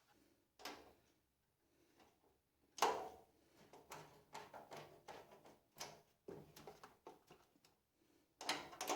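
Metal cart parts being handled: a run of scattered knocks and clicks, the loudest about three seconds in with a short ring after it, and a quick cluster near the end.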